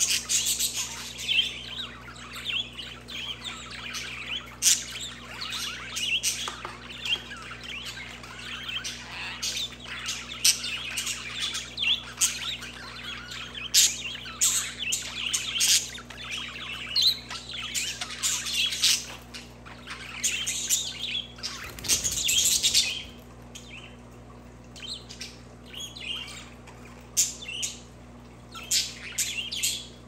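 Budgerigars chirping in a busy stream of quick, high chirps and chatter, thinning out to sparse chirps for a few seconds after the middle.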